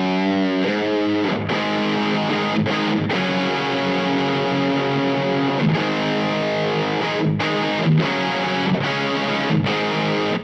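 Distorted electric guitar, a Greco LP-style guitar played through an LPD Seventy4 Marshall-style overdrive pedal with the gain cranked and the mids boosted. It plays a sustained lead line, with a note shaken in vibrato near the start.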